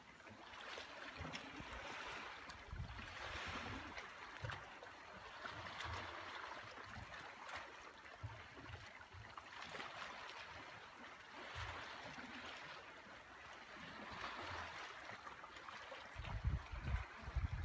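Small waves lapping and trickling against the hull of a moored motor yacht, swelling and easing every couple of seconds, with scattered low thumps that get louder near the end.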